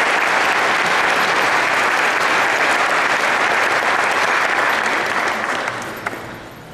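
Audience applauding, loud and steady, then dying away between about five and six and a half seconds in, with a single sharp click just after six seconds.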